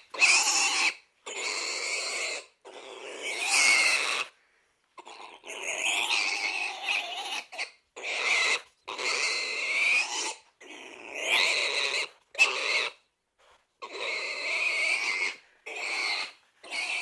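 Pig squealing: a series of harsh calls, each about a second long, broken by short silences.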